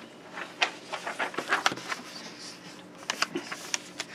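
A sheet of paper being handled and set down on a craft mat: an irregular run of short rustles and light clicks.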